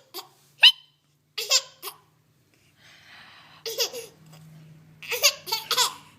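A baby giggling in short, high-pitched squeals, mixed with hiccups. The bursts come a few at a time, with a longer run of giggles near the end.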